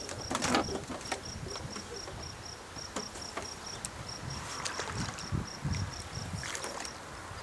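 A cricket chirping steadily, an even run of short high-pitched pulses. Sharp clicks and rattles come in the first half-second, and a few low thumps come around five to six seconds in.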